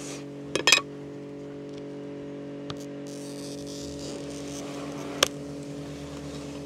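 A glass cutter working a small scrap of greenhouse glass: a few sharp clicks about half a second in, a faint scratchy scoring sound around the middle, and a single tap near the end. A steady low buzzing hum runs underneath.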